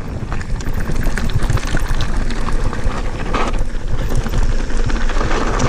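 Santa Cruz Bronson mountain bike rolling down a loose gravel trail: tyres crunching over small stones, with constant rattles and clicks from the bike, over a low rumble of wind on the microphone.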